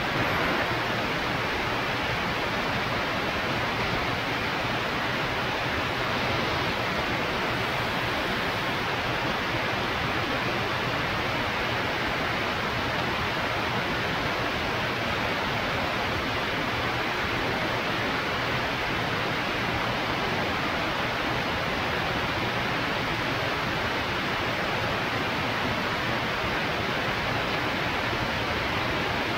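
Steady rushing airflow over a camera mounted outside a Zenith CH 650 B light aircraft in flight, with a faint low engine drone underneath.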